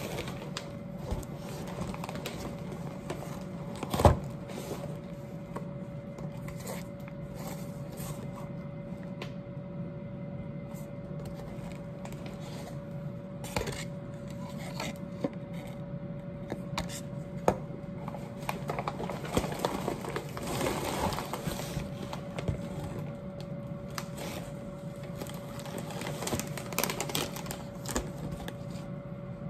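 Shopping being unpacked from a fabric bag onto a metal kitchen counter: scattered knocks and taps as items are set down, a sharp knock about four seconds in being the loudest, and plastic packaging and bag fabric rustling and crinkling, busiest a little past the middle. A steady faint hum runs underneath.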